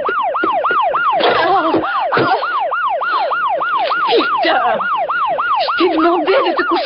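Electronic alarm wailing in a fast rising-and-falling whoop, about three times a second, with quicker falling sweeps over it and a burst of noise about a second in. It is a home-made intruder alarm going off.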